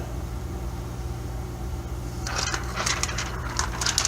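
Protective plastic film being peeled off a new laptop LCD panel: crackling and rustling that starts about two seconds in, over a low steady hum.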